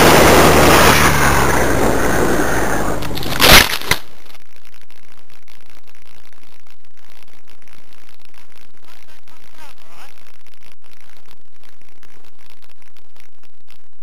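Small motor of a camera-carrying model aircraft humming under loud rushing wind noise on its onboard microphone, fading over the first few seconds. A loud crack about three and a half seconds in, after which only faint scattered clicks remain.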